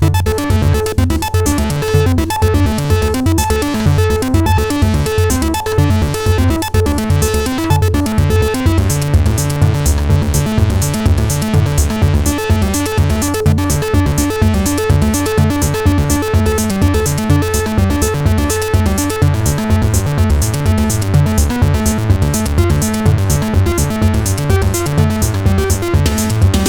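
Electronic music jam: a Roland TR-8 drum machine playing a steady beat with a heavy bass drum and busy hi-hats, under sequenced synthesizer lines from a Behringer TD-3-MO bass synth and an Arturia Minibrute 2S. About eight seconds in, the pattern changes and the hi-hats become denser.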